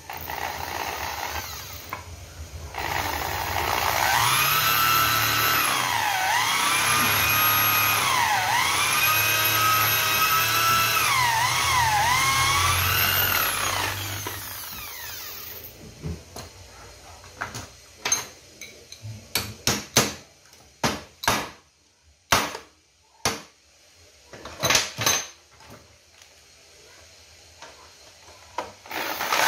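Power drill running with its bit in the metal of a chainsaw crankcase; the motor's pitch dips and recovers several times as the bit bites, then winds down about fourteen seconds in. After that come scattered short clicks and knocks as the drill and casting are handled.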